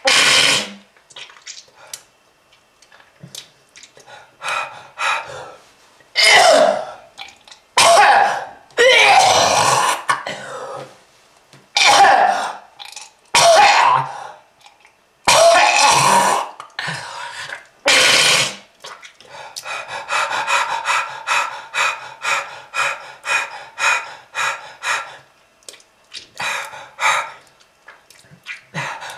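A smoker coughing and clearing his throat: a string of loud, separate coughs. In the last third it turns into a fast run of short, hacking breaths, about two a second.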